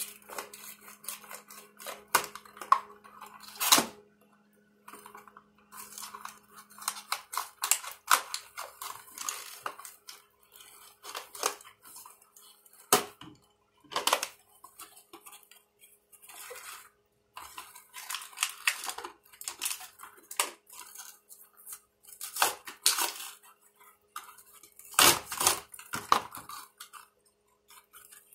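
Cardboard and plastic toy packaging being opened by hand with a knife: irregular scraping, rustling and sharp clicks as the box is cut and the insert and plastic-wrapped parts are pulled apart.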